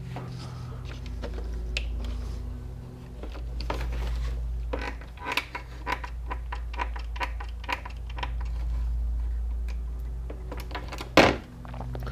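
Plastic clicks and taps of a washer's control circuit board being pressed and worked into its plastic control panel housing, with a louder knock about 11 seconds in, over a steady low hum. The board is not seating, which the repairer puts down to too much hot glue on it.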